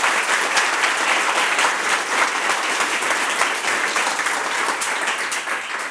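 Audience applauding in a lecture room, a dense steady clapping that begins to thin out near the end.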